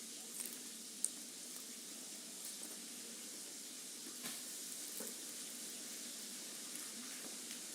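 Food sizzling in a hot frying pan: a steady hiss with a few sharp ticks, the loudest about a second in.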